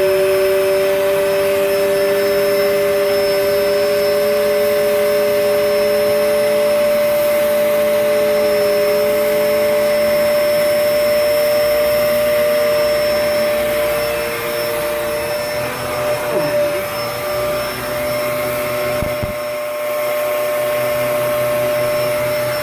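Vacuum cleaner running steadily with a high motor whine. A second, lower whine wavers and fades out about two-thirds of the way through, and there is a single knock near the end.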